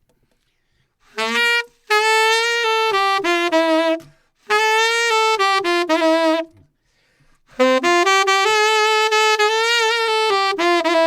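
Solo saxophone playing a slow ballad melody in three phrases, the notes joined smoothly. The step up from B to C is bent up using the side key, and the playing carries a fairly strong vibrato.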